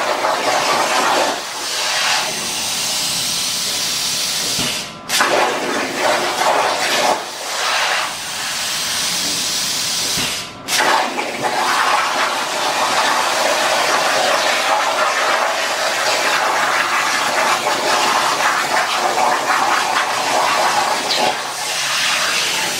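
Plasma cutting torch on a CNC plasma table (Hypertherm Powermax45 XP) cutting steel plate: a loud, steady hiss of the arc and air. It breaks off briefly twice, about five and ten seconds in, and starts again at once.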